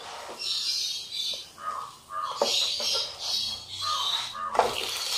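A wooden spatula scraping and tapping in a nonstick frying pan as a stack of layered pancakes is turned over, with two sharp knocks, one about halfway through and one near the end.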